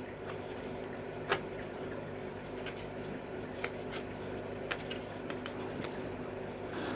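A few faint clicks and taps of small 3D-printed PLA parts being handled and glued, over a steady low hum with several faint steady tones.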